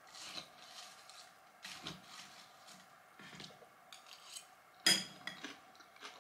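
Metal fork scraping and clinking against a glass bowl while salad is eaten, faint short scrapes and ticks, with one sharper ringing clink about five seconds in.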